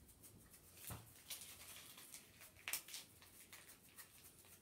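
Near silence: quiet room tone with a few faint taps and brushing sounds, the clearest about a second in and just before three seconds.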